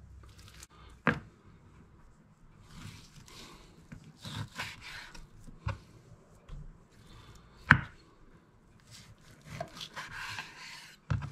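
Chef's knife cutting raw bone-in goat meat on a wooden chopping board: quiet slicing and scraping with a few sharp knocks, the loudest a little over halfway through.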